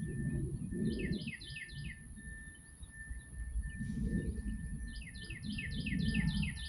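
A songbird singing two runs of quick, downward-slurred whistled notes, about five notes near the first second and a longer run of about eight later on, over a low rumble from a cement truck.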